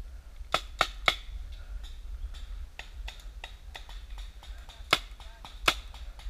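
Paintball guns firing: a string of sharp pops, three loud ones close together about half a second to a second in and two more near the end, with fainter pops scattered between.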